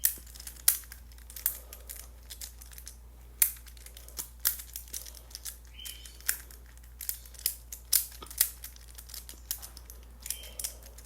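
Plastic fidget toy being handled and worked over and over, giving irregular sharp clicks and taps of uneven loudness. There are brief faint high squeaks about six seconds in and near the end.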